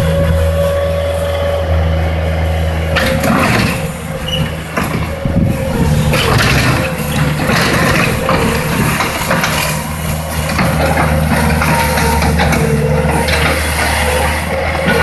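Bobcat compact track loader's diesel engine running steadily with a steady whine above it; from about three seconds in, irregular rattling and scraping join it as the machine moves and works its bucket.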